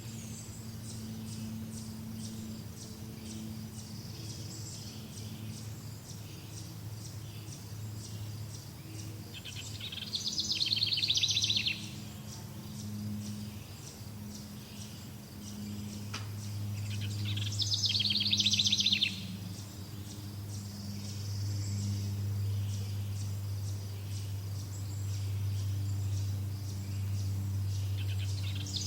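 A songbird singing a rapid trill three times, each about a second and a half long. A fast, even, high-pitched ticking and a steady low hum continue underneath.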